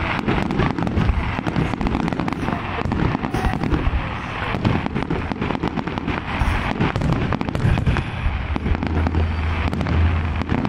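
Aerial fireworks display: many shells going off in rapid succession, a dense run of bangs and crackles with little pause between them. A steady low hum comes in for the last couple of seconds.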